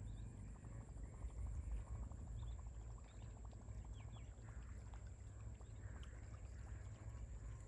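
Quiet outdoor ambience: a low rumble of wind on the microphone, with faint scattered clicks and a thin steady high whine.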